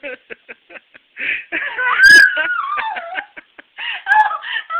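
A woman's high-pitched voice: quick, rapid giggling bursts, then about two seconds in a long squeal that rises and then slides down, followed by more short whimpering squeals near the end.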